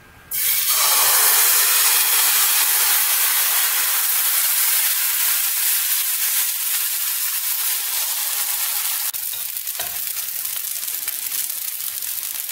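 Thin pancake batter sizzling in a hot, lightly oiled pan. The sizzle starts suddenly as the batter hits the pan, then runs steady and eases a little as the pancake sets and fills with holes.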